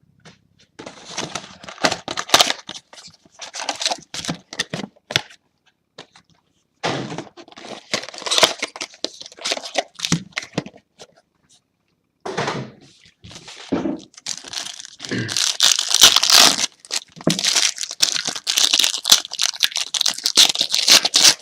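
Plastic wrapping on a trading-card box being torn open and crinkled by hand, in bouts of crackling rustles with short pauses and the thickest, loudest stretch in the second half.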